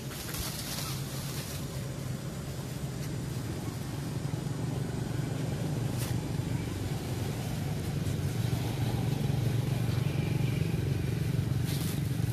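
A motor engine running steadily at low pitch, slowly growing louder, with a few brief clicks on top.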